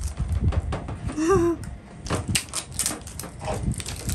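Slime being pressed, pulled and squeezed by hands on a metal tabletop: a continuous run of small sticky clicks and squelches with soft knocks. A brief child's voice sounds about a second in.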